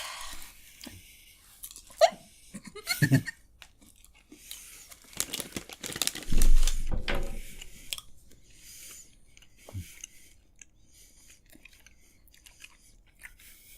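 A person chewing a mouthful of Skittles candies, with small crunches and mouth noises. There is a louder thump with rustling about six seconds in.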